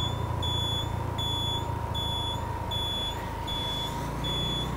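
A vehicle's electronic beeper sounding a short, high, even beep about three times every two seconds, over the low hum of the running vehicle.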